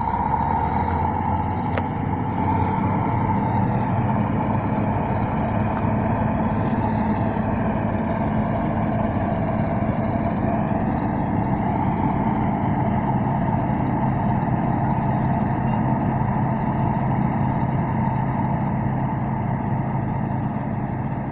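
Bizon Z056 combine harvester and Case 140 CVX tractor running together in a field: a continuous, even drone of diesel engines and machinery with a steady high hum through it.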